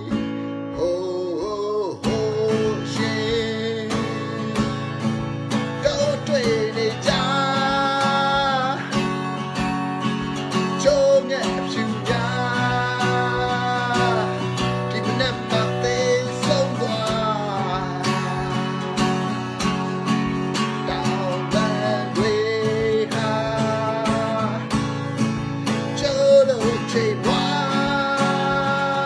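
A man singing a Burmese song while strumming an acoustic guitar in a steady rhythm, holding some sung notes for a second or two.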